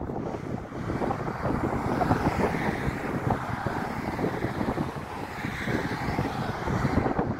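Wind buffeting the microphone in gusts, over the steady distant rumble of a jet airliner's engines on the runway and road traffic passing close by.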